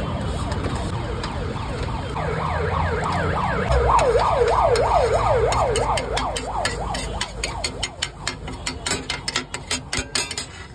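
A siren sounds in quick rising-and-falling sweeps, a few per second, loudest around the middle, then fades. Through the last few seconds a metal spatula chops and scrapes omelette mix on a steel griddle in rapid clicking taps.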